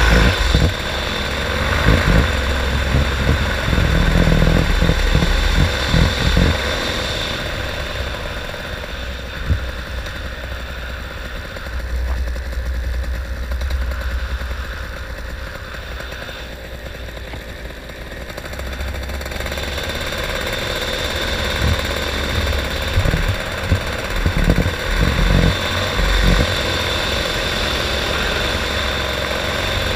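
Paramotor engine and propeller running in flight, with wind buffeting the microphone. The engine note eases off through the middle and picks up again toward the end.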